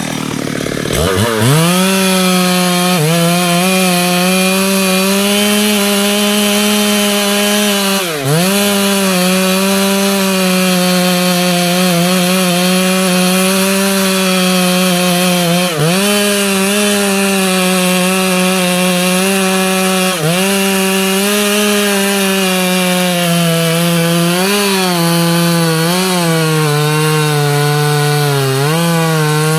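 Two-stroke Stihl chainsaw at full throttle, cutting through a teak trunk on the felling cut. The engine revs up about a second in, dips briefly in pitch several times as the chain loads up in the wood, and wavers more near the end.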